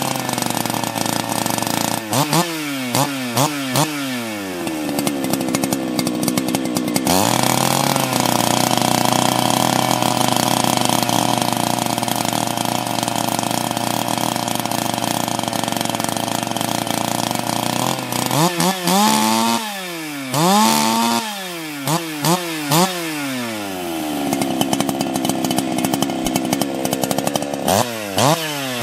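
Husqvarna two-stroke chainsaw revving with no load in the cut. It blips up and down in pitch a few times, is held at full throttle for about ten seconds, then blips again and settles lower before more quick revs near the end.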